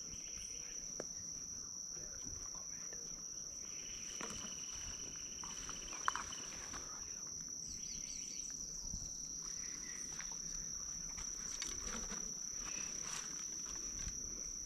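Insects calling in a steady, high-pitched drone from the surrounding bush, with a single sharp click about six seconds in.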